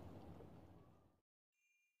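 Lakeside ambience of wind and lapping water, a steady low hush, fading out over about a second into a moment of total silence. Faint chime tones then begin near the end.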